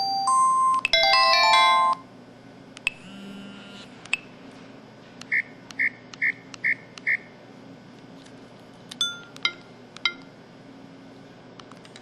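Samsung SCH-E200 mobile phone playing its built-in sound effects: a short melodic jingle of electronic tones that ends about two seconds in, then quieter short beeps and clicks, including a run of five quick, evenly spaced beeps near the middle.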